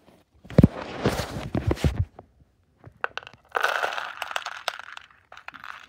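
A hand rummaging in a zip-lock plastic bag of plastic pony beads, the bag crinkling and the beads clattering, then beads dropped into a cardboard box. It comes in two bursts of rattling clicks, one about half a second in and one about three and a half seconds in.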